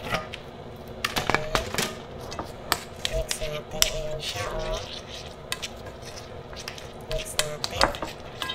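Gloved hands mixing cubed chicken with yogurt and spices in a ceramic bowl: wet squelching and plastic-glove rustling, with scattered sharp knocks against the bowl. Near the start a spice jar is shaken over the bowl.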